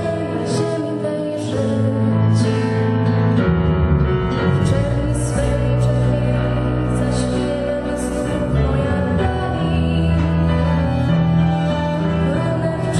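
Acoustic guitar and bowed cello playing a slow song live, the cello holding long notes that change every second or so.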